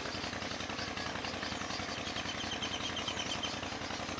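A motor running steadily with a rapid, even pulse that does not change. A faint run of high-pitched ticks comes in a little after two seconds.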